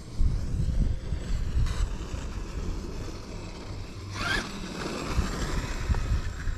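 Brushless motor and drivetrain of an 8S RC monster truck (Outcast electronics, 25T pinion on a 39T spur) whining as it speeds up and backs off, a rising then falling whine about four seconds in. Under it runs a steady low rumble.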